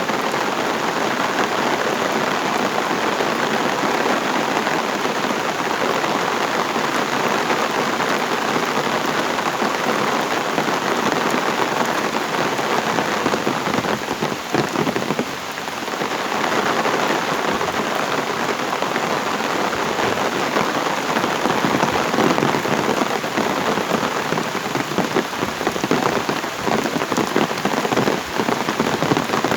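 Heavy rain falling steadily, a dense even patter that eases slightly for a moment about halfway through.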